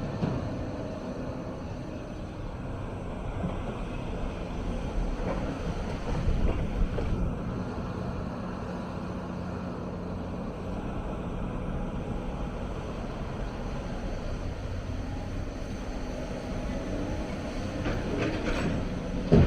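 Hyundai 290 excavator's diesel engine running steadily under working load, with a steady hum in the middle and a few loud clunks near the start, about six seconds in, and near the end.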